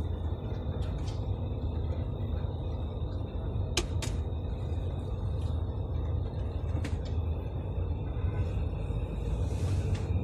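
Bus engine and road rumble heard from inside the cabin while the bus drives along, with a faint steady high whine and a few short sharp clicks.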